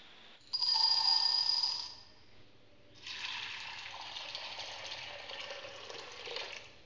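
A brief bright tone with several pitches starts suddenly and fades out after about a second and a half. Then warm water is poured in a steady stream into a glass bowl of dried chickpeas, splashing and rushing until it stops just before the end.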